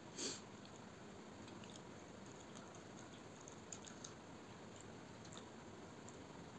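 Faint sounds of eating by hand: rice and chicken curry squished and mixed with the fingers on a steel plate, with chewing. There is a brief louder wet sound about a quarter of a second in and a couple of light clicks about four seconds in.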